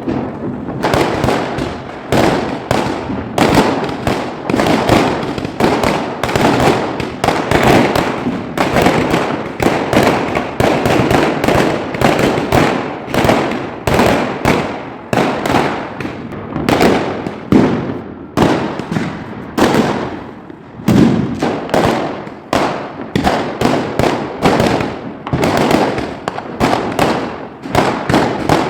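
Fireworks and firecrackers bursting continuously, many sharp bangs and crackles overlapping several times a second without a break.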